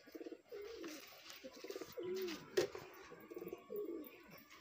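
Domestic pigeons cooing over and over, the low warbling coos following one another every half second or so, with one sharp click about halfway through.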